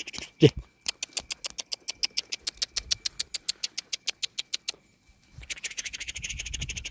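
A Kangal puppy gives one short yelp that falls in pitch about half a second in. A fast, even run of sharp clicks, about ten a second, follows for some four seconds, then rustling near the end.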